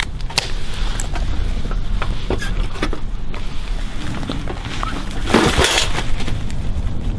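Wire-mesh live trap holding a raccoon rattling and clicking as it is handled, scattered sharp metal clicks and knocks, with a burst of leaf and brush rustling about five seconds in.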